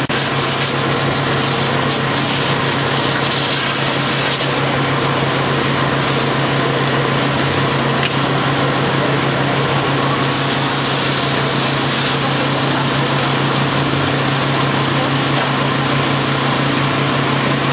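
Fire engine's pump running steadily, a constant low engine drone under an even hiss.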